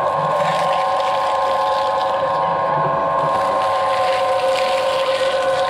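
Twin-shaft shredder running with a steady gear whine while its cutter discs tear apart a half coconut shell, with rough crunching and ripping of the fibrous husk.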